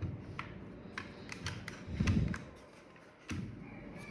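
Scattered sharp clicks from keys and switches on a Keychron K4 V2 mechanical keyboard being pressed as it is set up, with a dull thump about two seconds in.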